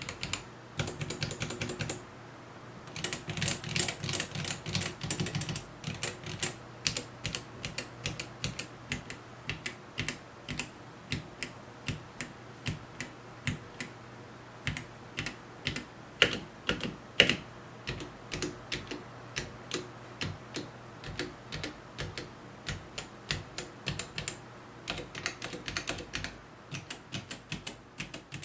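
Typing on a Gamakay K87 mechanical keyboard with Gateron Black linear switches and ABS double-shot keycaps. There are fast flurries of keystrokes near the start and again near the end, with slower, evenly spaced single key presses in between.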